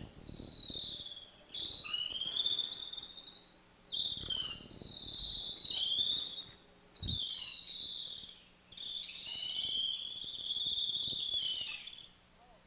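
Drill press bit squealing as it end-bores into the end grain of a wooden blank. It comes in about five high-pitched bursts, each sliding down in pitch, with short pauses between them as the bit is fed in.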